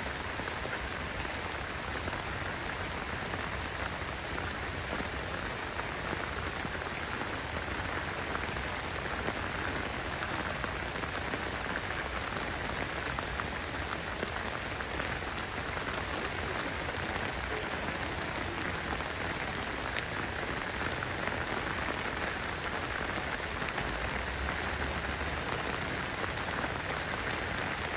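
Torrential rain falling steadily, an even hiss of heavy rain on the ground and surfaces, with scattered sharper drop hits.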